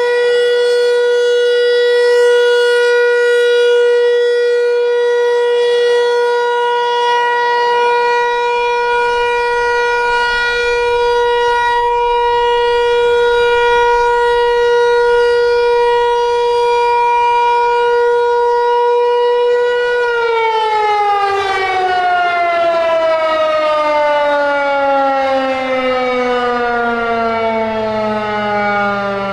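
Federal Signal Equinox outdoor warning siren sounding its steady Alert tone, loud and unwavering in pitch. About two-thirds of the way through the tone ends and the siren winds down, its pitch falling steadily.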